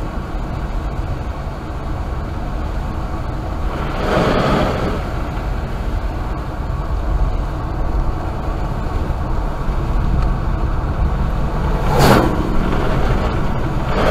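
Car driving on a wet road in rain, heard from inside: steady tyre and road noise with rain on the body. There is a swell of noise about four seconds in, and near the end an oncoming vehicle whooshes past on the wet road.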